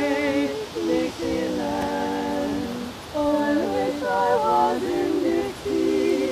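Slow unaccompanied singing, a melody of long held notes in several overlapping voices, with short breaks between phrases.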